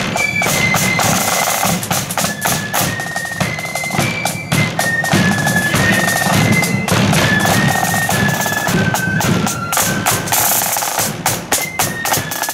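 A marching flute band playing a tune: shrill flutes carry a stepping melody over snare drums playing rolls and a bass drum beating time.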